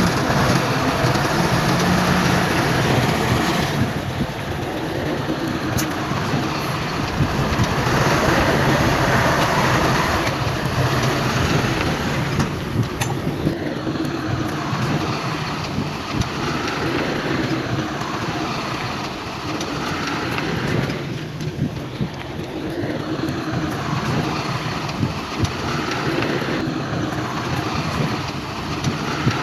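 Heavy diesel earthmoving machinery, a bulldozer and dump trucks, running and working, its level swelling and easing every few seconds, with a few short knocks.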